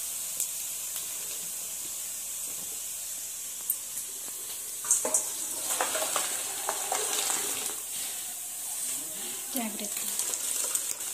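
Part-cooked basmati rice and its boiling water poured from a pot into a metal colander: water splashing and draining through, starting about five seconds in, with a few sharp clinks.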